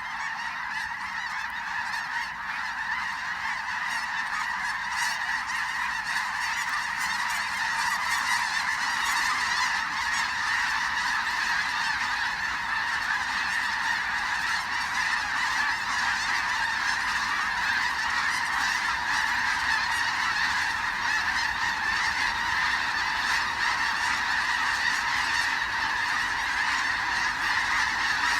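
A huge flock of snow geese calling continuously: a dense din of countless overlapping honks that swells over the first several seconds and then holds steady.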